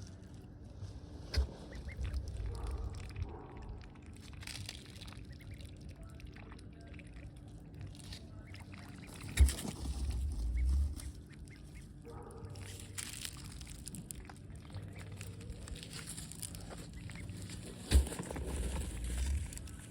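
Ducks quacking on and off around a pond, with three sharp knocks spread through, each followed by a second or so of low rumble.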